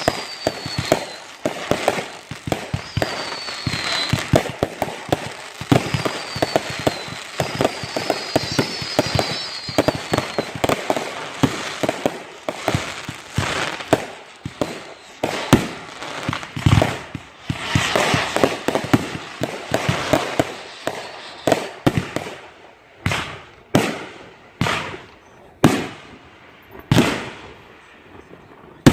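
Backyard consumer fireworks going off in a dense barrage of bangs and crackling, with several whistles falling in pitch in the first ten seconds. After about 22 seconds the barrage thins out to single bangs about a second apart.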